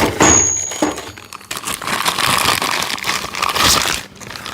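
Packaging crinkling and tearing as a large 1-inch impact socket is unwrapped and freed from its case, after a couple of knocks and a brief high squeak at the start.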